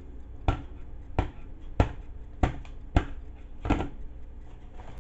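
A block of frozen sliced steak knocked six times in a steady rhythm, about one knock every 0.6 s. The sharp, hard knocks show that the meat is frozen solid.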